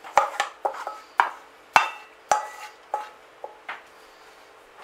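A bowl and a kitchen utensil knocking and tapping: about a dozen sharp knocks over some three and a half seconds, several with a short ring, as the last of a quiche filling is scraped and tapped out of the bowl into a flan dish.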